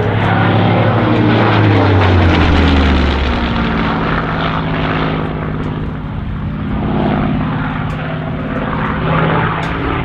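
Supermarine Spitfire's V12 Rolls-Royce Merlin engine and propeller in flight, loudest early on as the plane passes, its note sliding down in pitch over a few seconds, then running steadily at the lower note.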